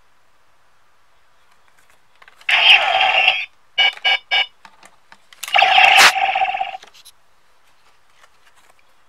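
Electronic sound effects from a DX Decadriver Kamen Rider Decade toy belt as a Diend Attack Ride card is used in it: a ringing burst of electronic tones about two and a half seconds in, three short beeps, then a second longer burst with a sharp click in the middle.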